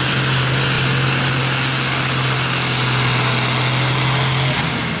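International Harvester farm tractor's diesel engine running flat out under the heavy load of a tractor-pull sled, a loud, steady drone. About four and a half seconds in, the engine note changes and the sound eases off a little.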